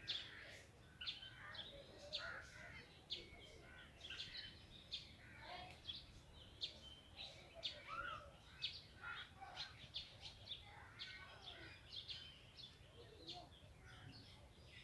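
Faint chorus of small birds chirping and calling, many short, high chirps overlapping throughout, over a low steady background rumble.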